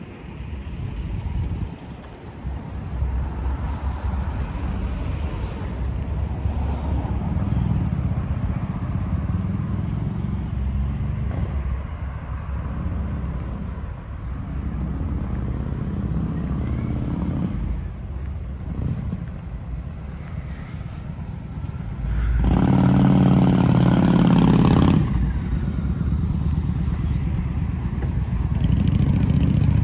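Road traffic on a town street: vehicle engines running and passing close by, with one louder engine passing for about three seconds roughly two-thirds of the way through.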